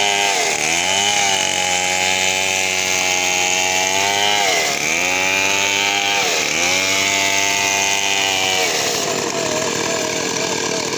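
Two-stroke chainsaws ripping a log lengthwise into planks. The nearest saw's engine note dips and recovers three times in the cut, then falls away about nine seconds in, leaving a second saw running more faintly.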